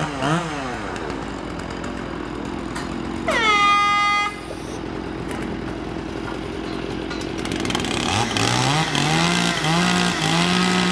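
Chainsaws running, with revs rising and falling. A single air-horn blast, the loudest sound, swoops up and holds for about a second some three seconds in. Near the end, chainsaws rev up in steps and hold at high revs.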